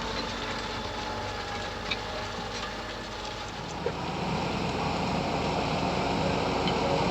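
Fendt 724 Vario tractor engine running steadily while ploughing, growing louder about halfway through, with a couple of faint clicks.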